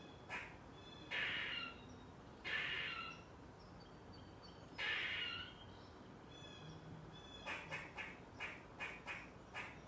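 Squirrel calling: three longer, harsh chirring calls in the first half, then a quick string of short, sharp chirps, about three a second, near the end.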